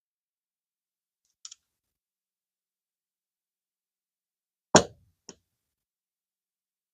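Near silence broken by a faint tick about a second and a half in, then a sharp knock near the five-second mark with a smaller click just after. These are small parts of a baitcasting reel being handled during disassembly.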